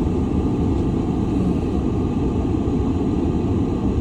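A vehicle engine running steadily, heard from inside the truck's cab as a dense low rumble.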